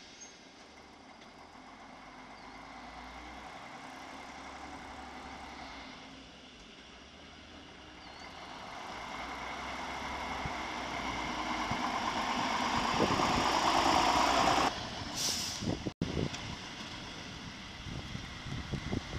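ČD class 810 'bread box' diesel railbus pulling away from a station, its underfloor diesel engine running and the noise growing steadily as it comes closer, loudest about fourteen seconds in. The noise then drops sharply, with a brief hiss, and gives way to fainter rumble and wind on the microphone.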